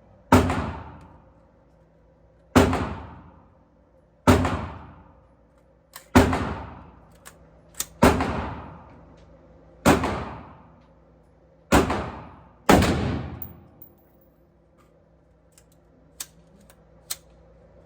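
Eight single gunshots, fired slowly about two seconds apart and the last two in quicker succession, each followed by a long echoing tail; a few faint clicks fall between the shots.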